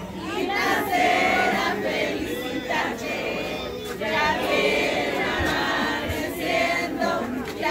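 A crowd of people singing together, many voices at once with no music behind them.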